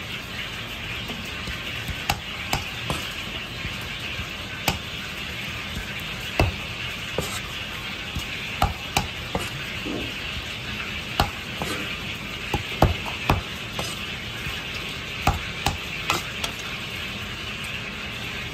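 Kitchen knife knocking irregularly on a thick plastic cutting board as raw chicken breast is trimmed and cut: a scattered series of sharp taps, about twenty, over a steady background hiss.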